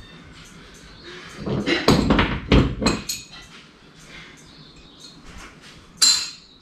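Clattering knocks and rattles from the engine hoist and its lifting chain being handled, loudest between about one and a half and three seconds in, then one sharp clank near the end. Faint high chirps sound in the background.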